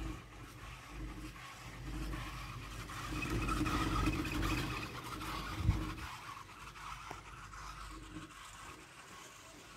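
Riding noise of a moving chairlift: low wind rumble on the microphone under a mechanical hum and scraping rattle from the lift, loudest a few seconds in, with a single knock just before the middle.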